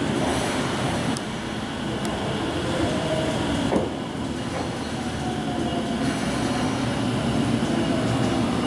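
Tokyo Metro 05 series subway train pulling into a platform and slowing to a stop, with a steady rumble of wheels and running gear and faint whines gliding in pitch. There is one brief sharp sound near the middle.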